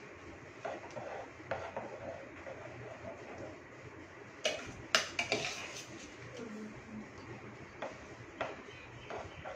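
Metal palette knife clinking and scraping against a bowl and the metal cake turntable while whipped cream frosting is spread. Scattered light taps, with the sharpest clinks about four and a half and five seconds in.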